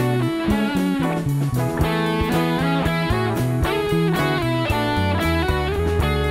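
Instrumental music: guitar over a moving bass line and a steady beat.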